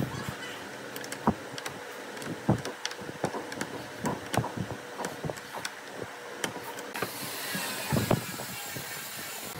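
Wrench turning nuts on threaded steel rods through a wooden chair frame: irregular metal clicks and ticks as the wrench is worked and repositioned, with small wooden knocks. A louder clatter of knocks comes about eight seconds in as the wooden frame is handled, over a faint high hiss near the end.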